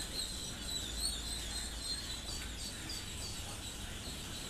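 A large flock of week-old laying-breed ducklings peeping together: a steady high chatter of many small, quick chirps.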